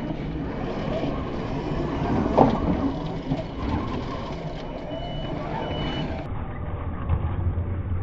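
RC rock crawler driving through loose sand: its motor and drivetrain run under load as the big tyres churn, with a sharp knock about two and a half seconds in and a faint high whine briefly after the middle.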